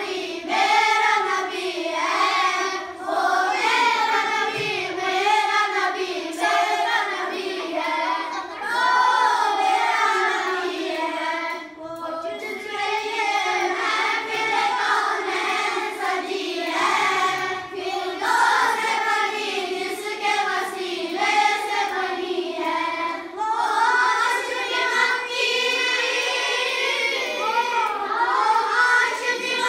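A boy singing a naat, an Urdu devotional poem, unaccompanied, in a melodic chanting style with brief pauses for breath between lines.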